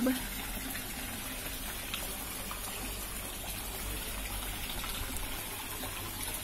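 Fountain water pouring and splashing steadily into an indoor koi pond, over a low steady hum.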